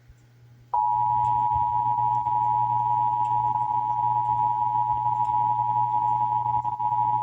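Emergency Alert System attention signal: the loud, steady two-tone alert (853 and 960 Hz sounded together) starting about three-quarters of a second in, over a low hum. It marks the start of an alert, here a required monthly test.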